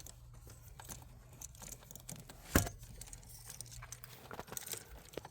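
Faint rustling and scattered small clicks of handling, with one sharper click about halfway through, over a faint low hum.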